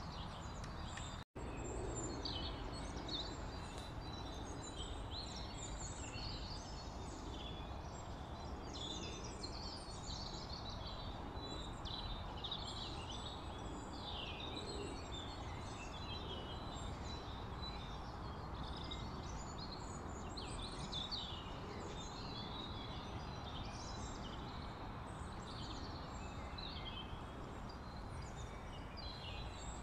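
Many small birds chirping over a steady background hiss, with the sound cutting out for an instant about a second in.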